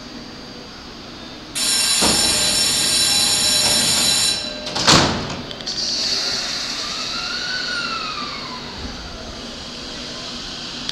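Doors of an E231-series commuter train closing: a loud, steady warning tone for about three seconds, then the sliding doors shutting with a sharp thud about five seconds in, followed by a hiss of air.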